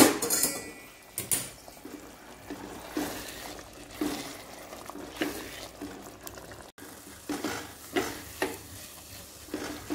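Silicone spatula stirring wet upma (semolina with vegetables) in a nonstick pan just after hot water has gone in, in repeated short wet scraping strokes as the semolina takes up the water. A sharp knock right at the start.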